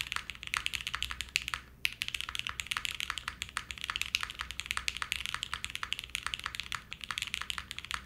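Fast, continuous typing on a Mode Envoy 65% custom mechanical keyboard built with a carbon fiber plate, lubed Gateron Speed Silver linear switches and PBT keycaps: a rapid run of keystrokes, with a brief pause about two seconds in.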